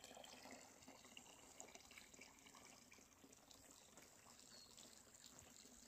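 Near silence, with a faint trickle of spring water running into a concrete stone trough.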